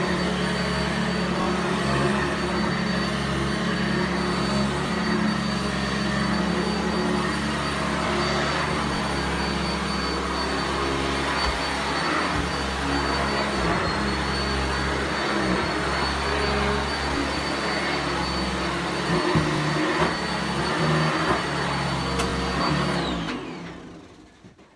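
Sanitaire SC679J commercial upright vacuum running steadily on carpet with a constant high whine over the motor's rush. Near the end it is switched off and the motor winds down, its whine falling in pitch as the sound dies away.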